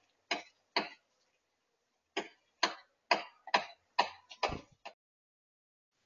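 Blue tit tapping and pecking at a bamboo bird feeder: about ten sharp taps, two close together near the start, then a quicker run of taps in the middle, one of them a duller knock.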